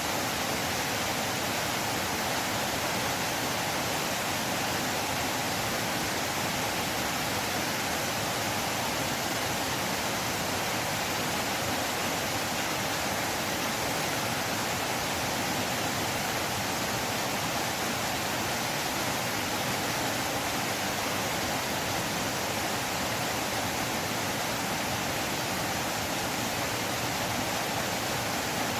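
River water flowing, a steady and unbroken rushing hiss with no changes.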